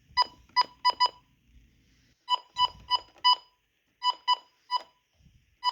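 Short, sharp electronic beeps, one steady pitch each, in quick irregular clusters of three or four.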